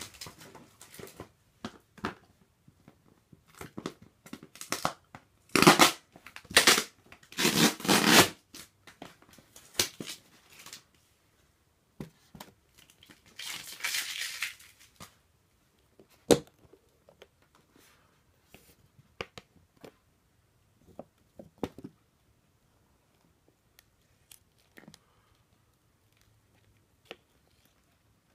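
Handling noises from clear plastic insect cases and their lids: rustling and scraping with scattered clicks and knocks. The loudest rustling comes in a cluster a few seconds in, with a longer scraping rustle around a third of the way through and a sharp click shortly after. Only small scattered clicks follow.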